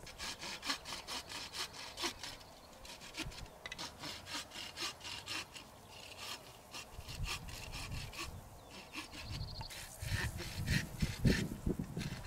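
Hand saw cutting through a wooden pole with quick, even back-and-forth strokes, about three a second.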